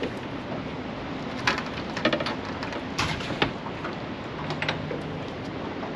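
Several sharp clicks and knocks from gear being handled in a fishing boat, scattered through the middle, over a steady wash of wind and water noise.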